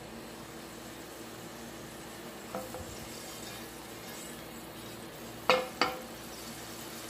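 Oil heating in a non-stick frying pan on a gas stove, a faint steady hiss. About five and a half seconds in, the pan knocks twice against the iron burner grate as it is set back down after the oil is swirled.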